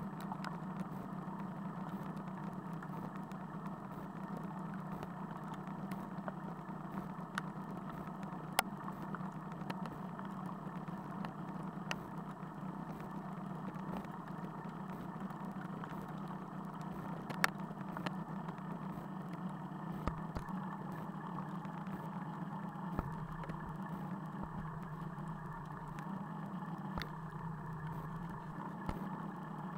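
Motorcycle engine idling steadily, with a few sharp ticks of raindrops striking the camera.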